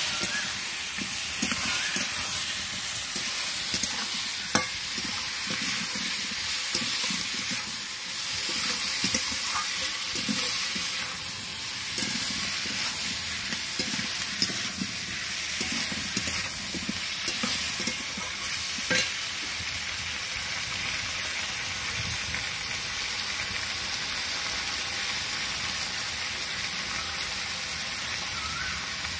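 Potatoes and capsicum sizzling in hot oil in a metal kadai while a metal spatula stirs and scrapes them, with scattered clicks and knocks of the spatula against the pan.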